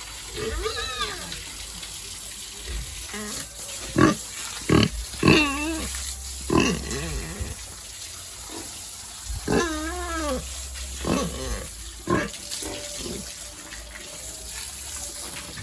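Pigs calling: several drawn-out calls that rise and fall in pitch, with a few sharp knocks among them, over a steady hiss that may be running water.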